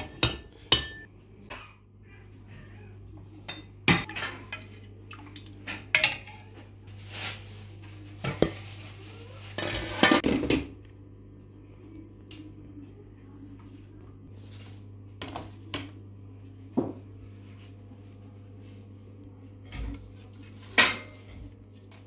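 Cookware being handled: a glass pot lid lifted off, pans and utensils knocking and clinking in scattered sharp strikes, with a denser clatter around the middle, over a low steady hum.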